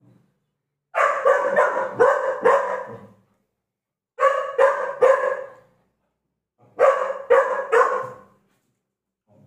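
A puppy barking in three quick volleys: about five barks, a pause, three barks, a pause, then three more.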